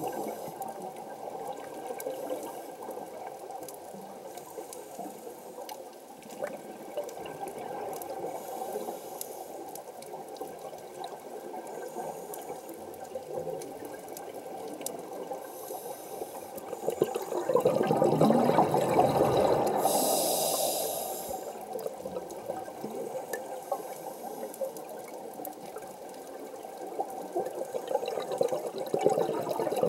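Underwater sound through a camera housing: a steady wash of water, broken about two-thirds through by a loud rush of scuba regulator exhaust bubbles that ends in a brief high hiss, with the bubbling building again near the end.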